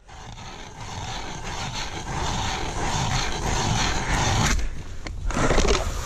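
Hand-cranked ice auger cutting down through ice: a steady scraping, grinding churn that grows louder, breaking off about four and a half seconds in as the auger is pulled up out of the hole with slush.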